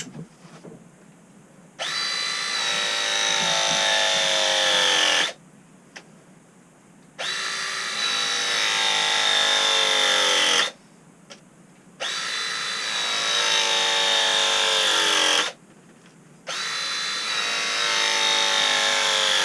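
ProPress tool crimping copper press fittings: four press cycles of about three and a half seconds each, the motor whining and slowly dropping in pitch as the jaws close, then stopping abruptly.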